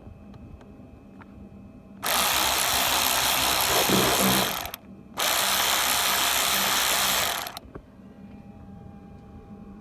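A power tool running in two bursts of about two and a half seconds each, with a short pause between them, sounding like a loud, even hiss.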